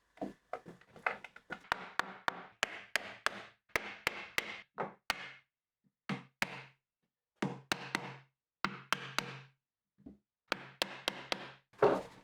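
Wooden parts knocking and tapping together in a quick, irregular series of sharp knocks, some with a short low ring after them, broken by brief pauses.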